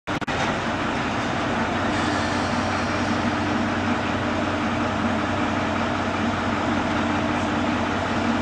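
Diesel railcar of a narrow-gauge rack railway running steadily with a low drone as it creeps slowly along the station track.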